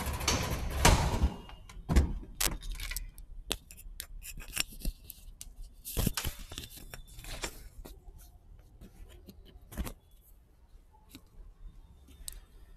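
Handling noise: rustling and scraping with a string of sharp clicks and knocks, loudest in the first two seconds, then scattered clicks that thin out after about ten seconds.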